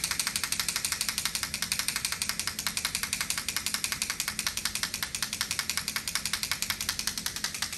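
Handheld noisemaker making a rapid, even rattle of sharp clicks, about ten a second, used as a sound trigger to get a sound-sensitive horse used to noise.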